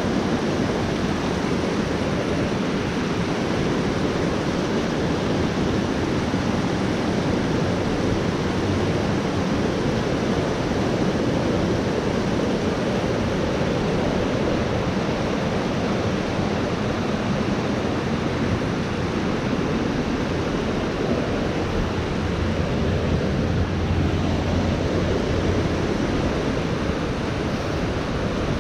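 Steady rushing of a high, fast-flowing creek running over rocks and boulders in white-water rapids.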